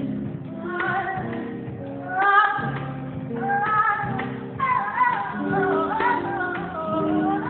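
Live band playing with a woman singing lead into a microphone, drums and electric guitars underneath; her sung lines rise and fall over the band. The recording has a dull, cut-off top end.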